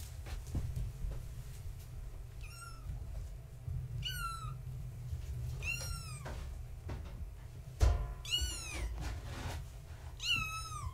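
Young kittens, about four weeks old, meowing: five high-pitched cries, each rising then falling, about two seconds apart. There is a sharp knock a little before the fourth meow, the loudest sound in the stretch.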